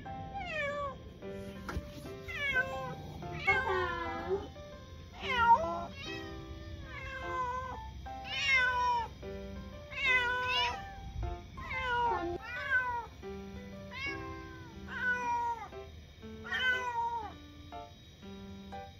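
A kitten meowing again and again from inside a pet carrier, one call about every second, each call falling in pitch. Background music plays under the calls.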